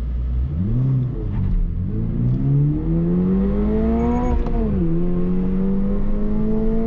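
2022 Toyota GR86's 2.4-litre flat-four engine, heard from inside the cabin, at full throttle in a standing-start launch with the six-speed manual, with a slight chirp of the tyres at the start. The revs rise and dip in the first second, climb steadily for about three seconds, drop at an upshift just before five seconds in, then climb again.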